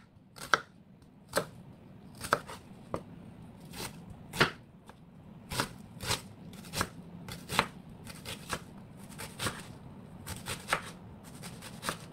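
Chef's knife chopping an onion on a wooden cutting board: a long string of uneven knocks of the blade on the board, closer together in the second half.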